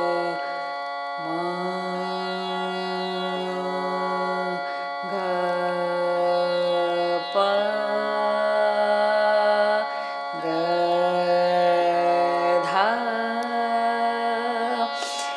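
A woman singing long, low held notes of voice practice (riyaz) over a steady drone. She moves to a new note every two to three seconds, with a sliding rise to a higher note near the end.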